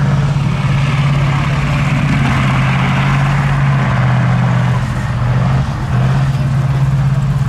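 Tracked armoured vehicle's engine running steadily as it crawls through deep mud, easing off briefly a little past five seconds in and then picking up again.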